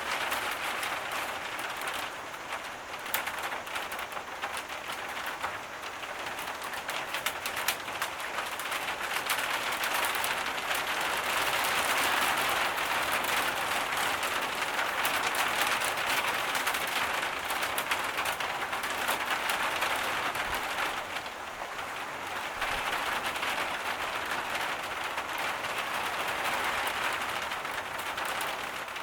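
Heavy tropical rain falling steadily, with a fine crackle of individual drops striking close by. It swells louder toward the middle and eases a little after about twenty seconds.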